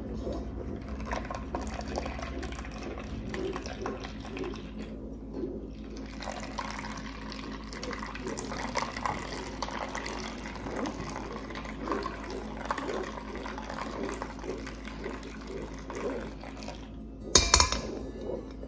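Blended juice trickling through a strainer as a spatula stirs and presses the pulp, with small scraping clicks throughout. A short, louder clatter comes near the end.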